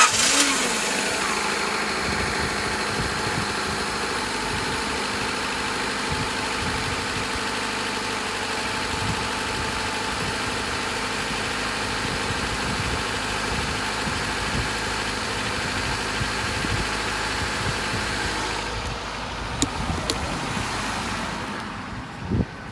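Honda D15B7 single-cam four-cylinder engine, freshly tuned with new spark plugs, distributor cap, rotor and wires, catching suddenly and settling into a steady idle. The idle eases slightly in level near the end, with a few light clicks.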